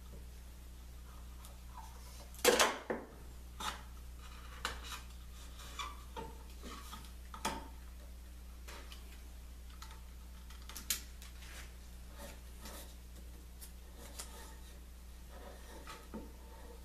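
Clear packing tape being pulled off its roll and rubbed down onto a wooden jig. It comes as scattered short rips, rustles and light knocks, the longest and loudest rip about two and a half seconds in, over a steady low hum.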